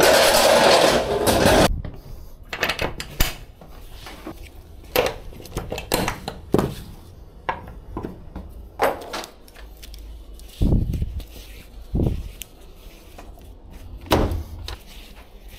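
Pallet jack rolling into the back of a box truck, a loud steady noise that cuts off after about a second and a half. Then scattered clicks, clinks and knocks as ratchet straps are unhooked from the metal E-track on the truck wall and stacked wooden chairs are handled, with a few dull thumps.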